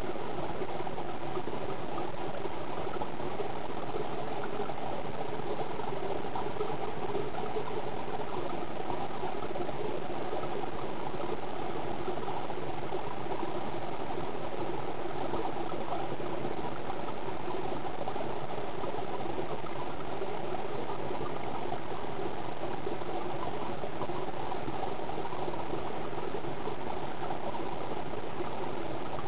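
Steady, unchanging rushing noise of water, picked up underwater.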